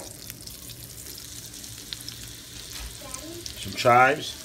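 Duck breast frying skin-side down in butter and olive oil in a skillet: a steady sizzle with a few faint pops.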